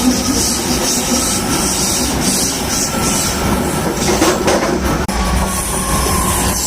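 BART train car 3087 running on the rails, a steady rumble and hiss with faint thin whining tones from its brakes.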